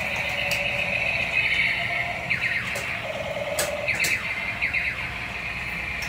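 Battery-powered toy tank's electronic sound effects: a steady high-pitched tone broken by several quick falling sweeps from about two seconds in, with a few sharp clicks.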